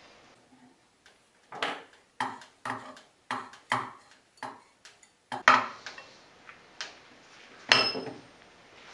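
Steel airgun barrel and valve assembly being handled on a wooden workbench. A run of about eight metal clinks and knocks is followed by two louder clanks, the last, near the end, ringing as the assembly comes to rest on the bench.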